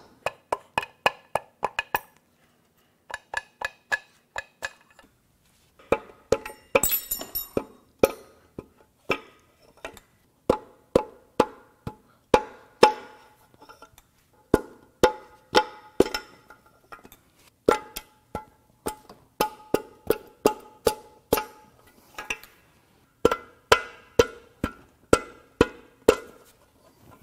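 Repeated sharp taps knocking the connecting rods and pistons out of the cylinder bores of a 3.0L Duramax LM2 inline-six diesel block. The taps come singly and in quick clusters with short pauses, each ringing briefly, with a short clatter about seven seconds in.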